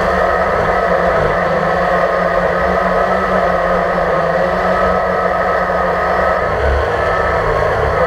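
Drone's electric motors and propellers, heard from the camera on board: a loud, steady buzzing whine whose pitch shifts slightly a little over three-quarters of the way through.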